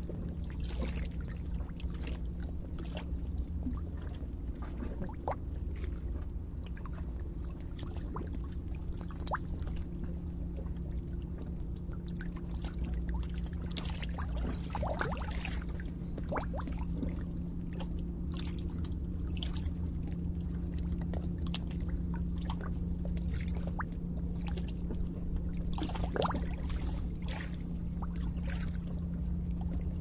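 Lake water bubbling and gurgling at the shoreline, with many small irregular plops and splashes over a steady low hum.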